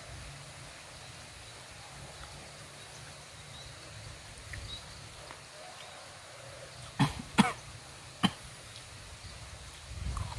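Quiet outdoor background, broken about seven seconds in by three short, sharp sounds: two close together, then a third about a second later.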